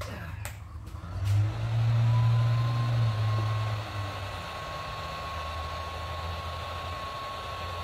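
Handheld heat gun running, its fan blowing a steady rush of air with a thin motor whine, as it is played over wet epoxy resin to push the white pigment into cells and lacing. A low rumble swells about a second in and fades by about four seconds.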